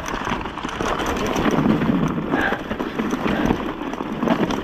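Mountain bike rolling fast down a dirt trail covered in dry leaves: tyres crunching over leaves, sticks and ground, with a steady clatter of small irregular knocks as the bike rattles over the bumps.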